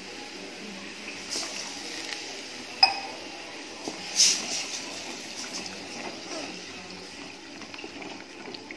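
Wooden spatula stirring a thickening gram-flour gravy in a metal kadai: wet sloshing and scraping, with a few sharp knocks of the spatula against the pan, the loudest about three and four seconds in.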